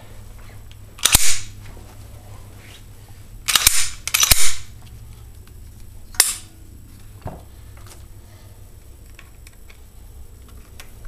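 A handgun being handled: four loud, sharp clacks spread over several seconds, then a softer one.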